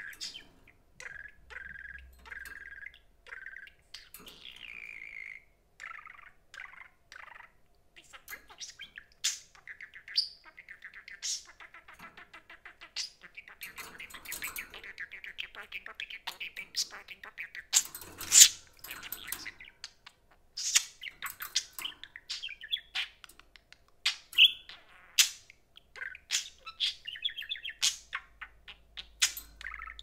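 Pet budgerigars chirping and warbling: a few short, level whistled notes about a second in and a rising call a few seconds later, then a busy run of chattering warble mixed with sharp high chirps and clicks.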